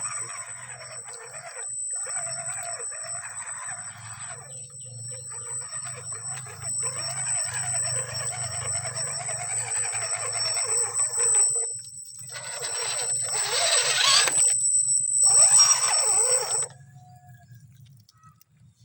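Electric RC crawler driving through mud: a steady high motor whine with grinding gear and tyre noise that comes and goes as it moves, loudest near the end, stopping suddenly about 17 seconds in.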